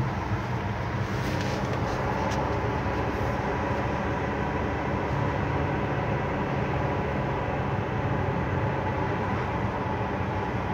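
Engine and road noise of a moving car, heard from inside the cabin: a steady hum.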